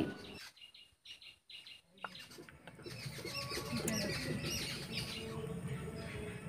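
Small birds chirping in many quick, short high calls, starting about two seconds in after a near-silent moment.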